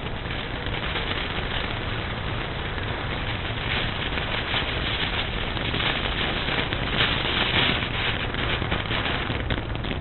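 Ground fireworks hissing and crackling steadily, with a dense spray of small pops and no big bangs, growing louder in the second half.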